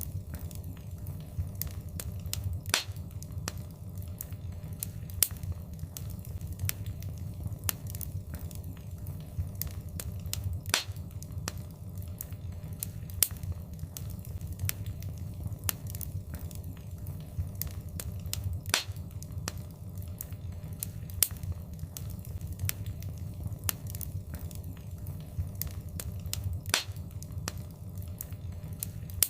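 Wood fire in a fireplace crackling, with sharp pops several times a second and a few louder snaps, over a low steady rumble of the flames.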